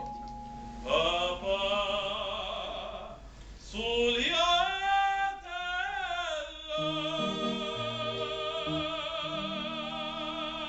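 A male operatic voice singing a classical piece with strong vibrato over sustained instrumental accompaniment. The phrase breaks off briefly about three and a half seconds in, swells again, and ends on one long held note.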